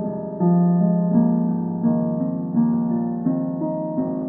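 Background piano music: slow, sustained notes over held low tones.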